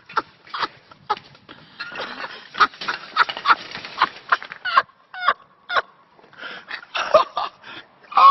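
People laughing in short rapid bursts, over a clatter and rattle of bicycles as a man falls into a row of parked bikes.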